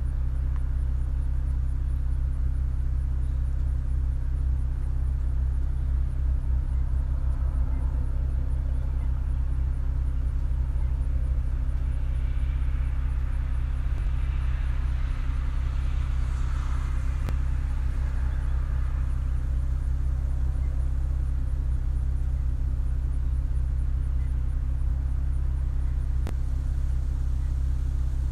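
Vehicle engine idling with a steady low hum. A fainter rushing sound swells and fades about halfway through.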